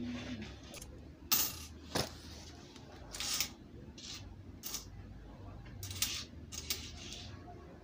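Kenyan shilling coins clicking and sliding on a wooden countertop as they are counted out by hand: a string of separate sharp clicks and short scrapes, about one a second.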